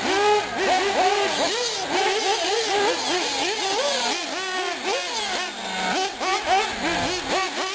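Two 1/8-scale nitro RC buggies, a Hot Bodies D8 and an Associated RC8, with their small glow engines revving up and down as they are driven. The engine pitch rises and falls sharply every fraction of a second with the throttle.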